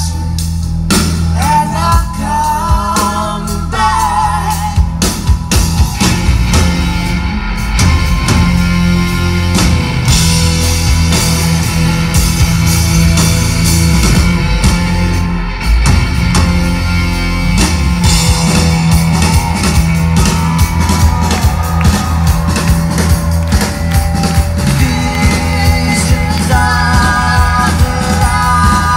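Loud live rock band playing: distorted electric guitars, bass and drum kit, with a singing voice over them, recorded from within the audience.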